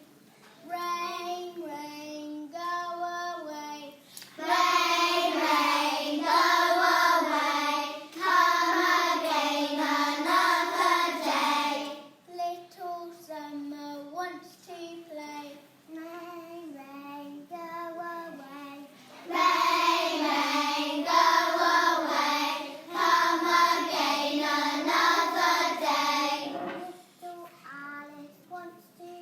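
A class of young children singing a song together, with quieter sung passages alternating with louder ones.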